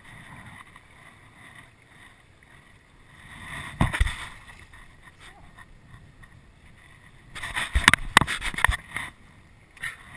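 A freshly landed snook thrashing against a fiberglass boat deck: one sharp knock about four seconds in, then a rapid flurry of loud slaps and knocks lasting about a second and a half near the end.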